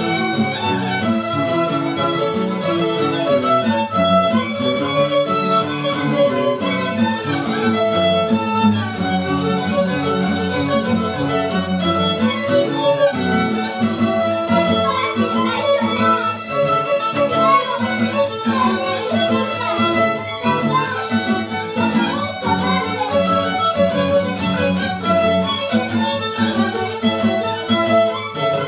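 Live string band music: two violins playing the melody over strummed acoustic guitars, in a steady, even dance rhythm.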